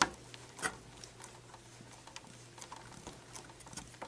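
Small clicks and ticks of wires being handled and twisted together over a metal burner junction box: a sharp click right at the start, another just over half a second in, then lighter scattered ticks. A faint low steady hum runs underneath.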